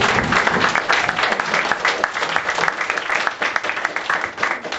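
Theatre audience applauding, with dense clapping that dies away near the end.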